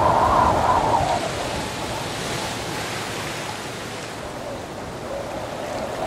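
Sea waves washing and breaking, a steady rushing with one wave swelling about two to three seconds in.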